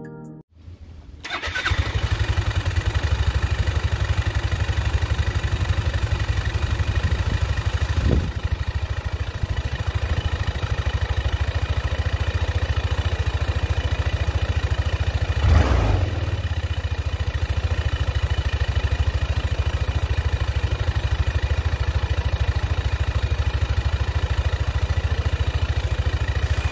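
Yamaha Mio MXi 125 fuel-injected scooter's single-cylinder engine starting and then idling steadily, with a brief rise in engine sound about halfway through. It is being run to test the idle after the idle-adjustment screw was turned about eight turns to cure an irregular idle.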